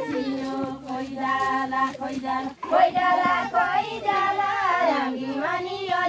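Women's voices singing a Deuda folk song in long, wavering held notes, with a short break between lines about two and a half seconds in.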